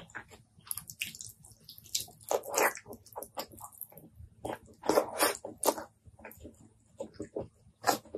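Close-miked wet chewing and mouth smacking from eating a curry-sauced chicken drumstick and rice by hand. The short, sticky clicks and squishes come at an irregular pace, with louder clusters about two and a half and five seconds in.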